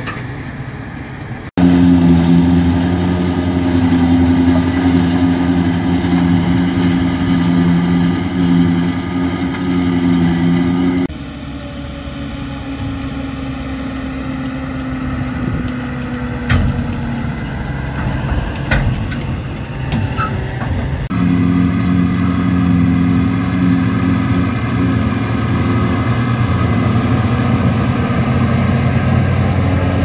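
Heavy tractor diesel engines and a trailed forage harvester at work, a loud steady hum with strong low tones. It cuts abruptly about a second and a half in, drops quieter with a few knocks through the middle third, and returns to full level for the last third.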